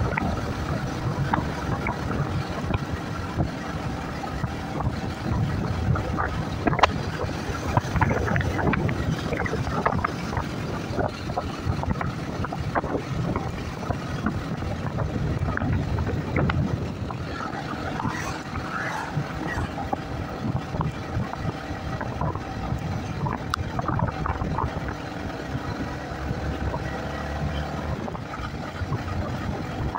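Wind buffeting the microphone of a moving Yamaha motorcycle, with its engine running steadily underneath at cruising speed.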